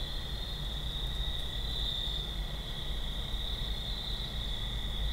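Night insect chorus of crickets or katydids: a steady high-pitched trilling that never stops, over a low rumble.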